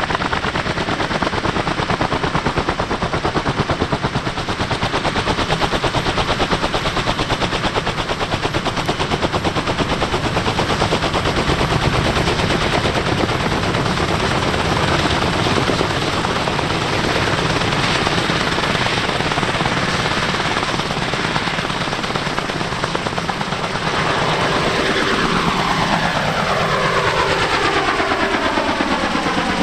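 Kaman K-MAX K-1200 helicopter's intermeshing rotors chopping loudly as a very rapid, machine-gun-like blade slap, over its Honeywell T53 turboshaft. From about 24 seconds in, a falling, swirling phasing sweeps through the sound as the helicopter moves.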